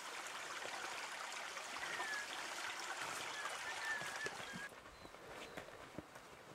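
Outdoor trail ambience: a steady rushing hiss with faint scattered ticks and a few faint high chirps. The hiss drops away suddenly after about four and a half seconds.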